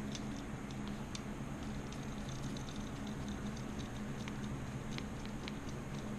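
Small scattered clicks and scrapes of a screwdriver working the screws of a motorized-bicycle kit carburetor, metal on metal, over a steady low hum.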